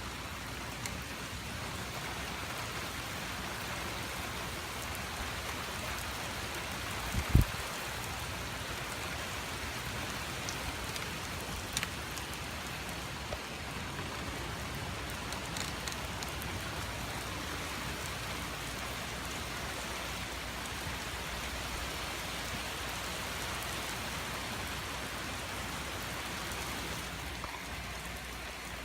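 Heavy rain from a squall line falling steadily, an even hiss of rain on surfaces. One sharp low thump stands out about seven seconds in, with a few faint ticks here and there.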